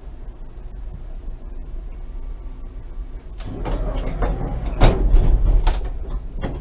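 Konstal 105Na tram with a steady low hum, then a few seconds of louder clatter with several sharp knocks, starting about halfway through.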